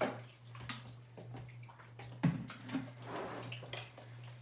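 Hands squishing and sloshing glue and slime activator in a large tub, a run of wet squelches and splashes, with a louder thump a little past halfway.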